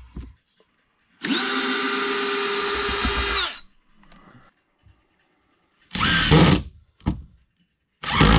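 Ridgid cordless drill/driver driving a screw into a wooden board: one steady motor run of about two and a half seconds, starting just over a second in and winding down at the end. It is followed by two short, louder bursts about six and eight seconds in.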